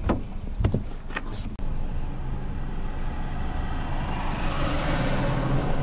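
A few sharp clicks and knocks, then from about a second and a half in a car runs steadily, with a rushing road noise that swells about four seconds in as it drives off.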